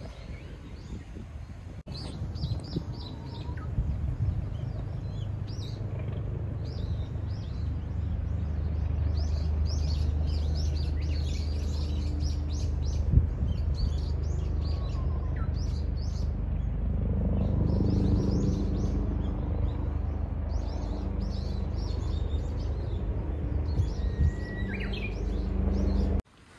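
Many small songbirds chirping and twittering in quick, repeated calls over a steady low hum. The hum grows louder a few seconds in.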